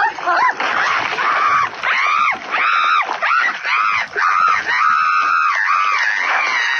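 A high-pitched, squeaky voice making a quick run of wordless squeals and whines, each rising and falling in pitch, about a dozen in a row.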